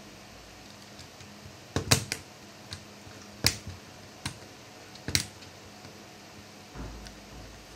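Hard plastic clicks and taps from handling a laptop's case and parts during repair work, about five sharp ones spread over a few seconds, followed by a softer low knock near the end.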